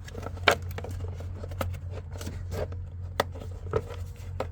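Irregular sharp clicks and light knocks of parts and hardware being handled and fitted in a car's engine bay, the loudest about half a second in, over a steady low hum.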